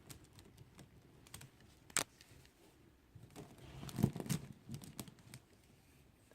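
Handling noise from a kandi hood of plastic pony beads as fabric fringe strips are threaded and tied on: scattered small clicks of beads knocking together, with rustling. One sharp click about two seconds in and a busier stretch of clicking and rustling from about three seconds in.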